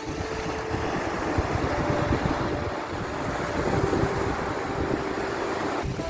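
Sea surf: waves rushing and washing in a steady noise, with faint held notes of soft background music that change every second or two.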